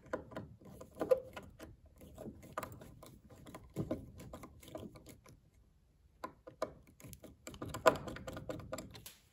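Screwdriver turning a slotted brass screw tight in a repaired screw hole in wood: irregular clicking of the blade in the screw slot, in bunches with a short pause just past the middle. The screw is biting and holding tightly in the restored hole.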